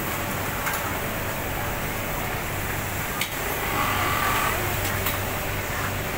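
Steady hum of a garment factory sewing floor: industrial sewing machines and fans running, with a few sharp clicks and a brief higher-pitched whirr a little before four seconds in.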